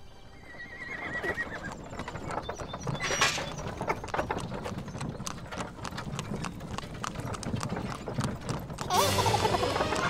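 A pony's hooves clip-clopping steadily as it pulls a wooden cart, with a whinny near the end.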